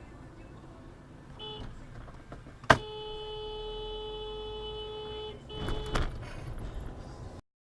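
Car horn over traffic rumble: a short beep, then a sharp bang, the loudest sound, followed at once by a steady horn blast of about two and a half seconds. A few more knocks follow, and the sound cuts off suddenly near the end.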